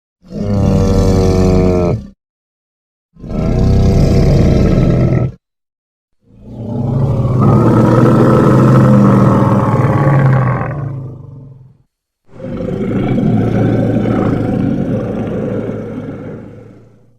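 Gomora kaiju roar sound effect, heard four times with silence between: two short roars of about two seconds each, then two long roars that slowly fade away.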